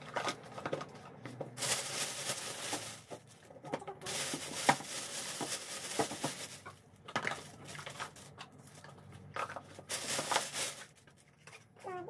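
Thin plastic shopping bag rustling and crinkling in bouts as items are taken out of it by hand, with short quiet gaps between.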